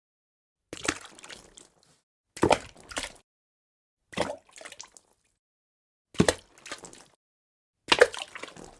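Dripping water: single drops falling one at a time, a drip every couple of seconds, five in all, each a sharp splash followed by a few smaller drips, with dead silence in between.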